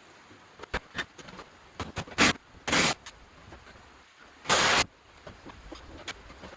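Scattered knocks and clicks with three short, loud scraping or rustling noises, about two, three and four and a half seconds in.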